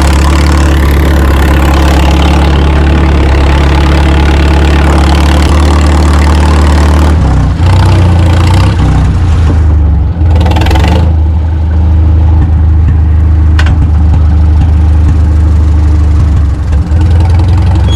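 Tractor engine running steadily, its note shifting a little about seven seconds in.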